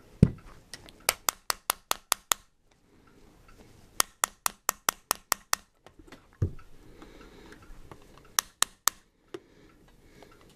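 Quick, sharp taps on a pin punch, driving a pin out of a Rossi R92 lever-action rifle's receiver: three runs of taps at about five a second, with a dull thump near the start and another about halfway through.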